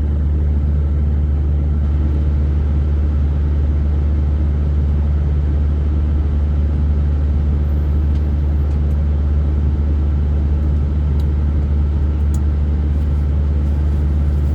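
Truck engine idling, a steady low drone heard from inside the cab, with a few faint clicks over it.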